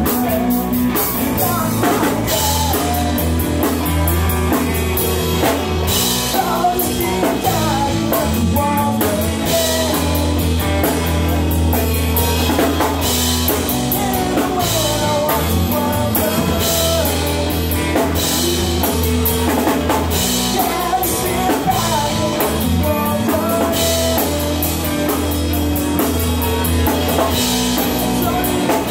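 A rock band playing live: a drum kit with repeated cymbal crashes, distorted electric guitars and electric bass, and a voice singing over them.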